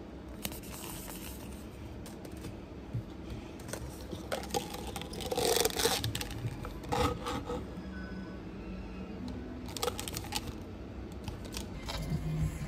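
Paper cups and a kraft paper cup sleeve being handled and slid together, scraping and rustling, with a louder scrape about five to six seconds in and a few lighter clicks later.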